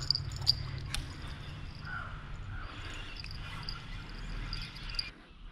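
Outdoor riverside ambience: insects chirping in a steady high pulsing trill over a low rumble, with a few short higher calls. Two sharp clicks within the first second are the loudest sounds, and everything drops away suddenly about five seconds in.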